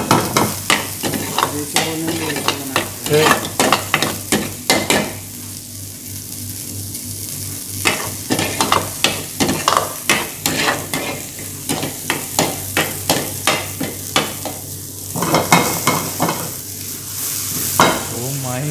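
Metal ladle scraping and knocking against a metal kadai as chopped ingredients are stirred in hot oil, over a steady sizzle. The strokes thin out for a couple of seconds around a third of the way in, then come fast and regular, about two to three a second.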